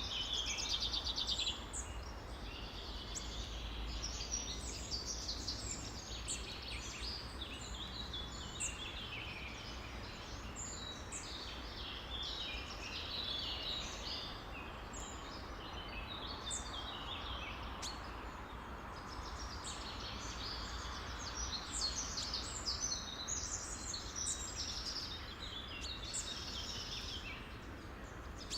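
Many songbirds chirping and trilling at once, a dense overlapping chorus of short high calls, over a steady low rumble.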